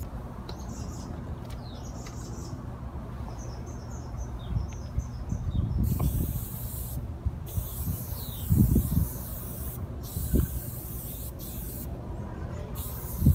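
Aerosol spray-paint can hissing in several bursts with short pauses between, starting about six seconds in. Before that, a few faint bird chirps over a steady low rumble, and a couple of low thumps partway through.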